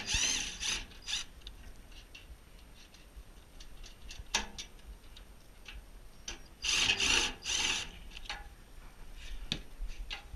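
Hand-tool clicking and scraping on metal as parts are worked loose from a pellet stove, most likely the vacuum switch and its hoses being removed. It comes in clusters: right at the start, briefly about four seconds in, and a longer run from about six and a half to eight seconds, with faint ticks between.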